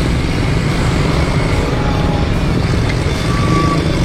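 Road traffic: motor vehicles and motorcycles running close by, a steady dense rumble with no single event standing out.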